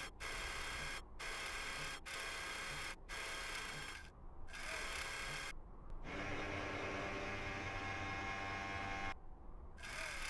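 Electric motors whirring as the animated Mars rover's robotic arm and camera mast move, in stop-start runs of about a second each with short pauses. Then one longer, deeper run lasts about three seconds, and a new run starts near the end.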